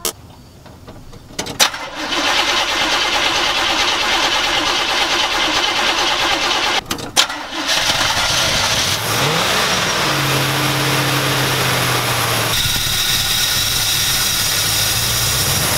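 Small-block Chevrolet V8 in a C10 pickup cranked and brought to life on fuel drawn by its mechanical fuel pump from a gas can serving as a temporary tank; it catches about two seconds in, cuts out briefly around seven seconds, then runs steadily. It runs because the real tank was empty.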